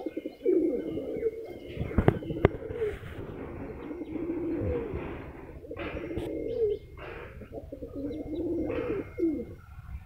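Domestic pigeons cooing over and over in low, warbling calls. Two sharp knocks come about two seconds in.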